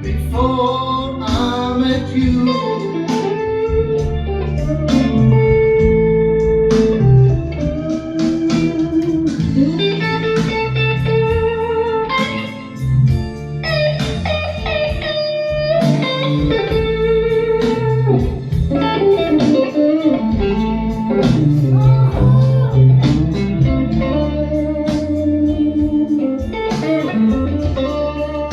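Blues music playing back through home hi-fi speakers and subwoofer: a lead electric guitar bending and sustaining notes over a steady bass line.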